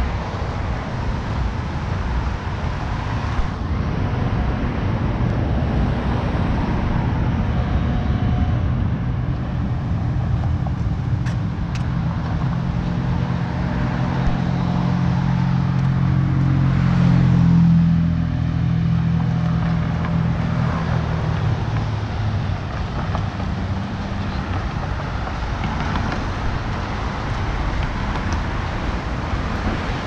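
Road traffic on a beachfront street: cars passing over a steady low rumble, with one vehicle's engine hum swelling to its loudest about halfway through and then fading.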